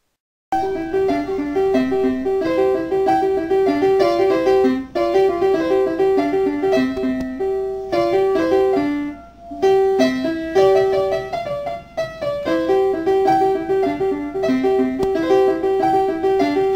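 Background outro music: a lively melody of quick, short notes that starts about half a second in, with a few brief pauses.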